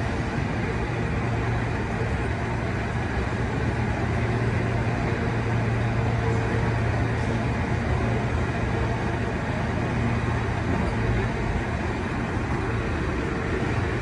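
Steady low hum of the cable running continuously in the slot beneath the cable car tracks, mixed with steady city traffic noise, while the cable car stands still.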